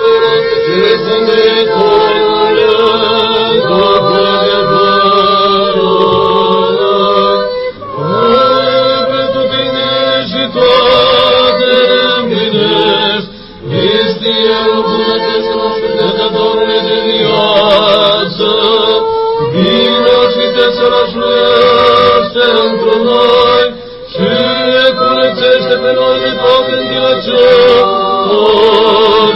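Orthodox liturgical chant sung in Romanian, held notes moving in phrases a few seconds long with short breaks between them.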